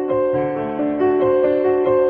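Background music led by a piano, playing a melody of held notes that change about every half second.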